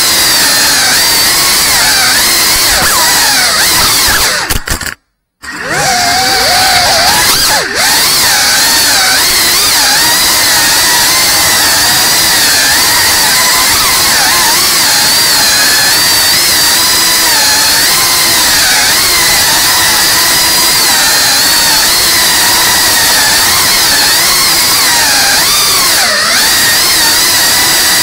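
FPV drone's motors and propellers whining in flight, the pitch wavering up and down with the throttle. The sound drops out for about half a second about five seconds in, then comes back rising in pitch.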